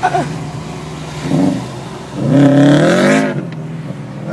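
Turbocharged four-cylinder car engine running, with a short blip about a second in and then a longer, louder rev around halfway, its pitch rising and then falling.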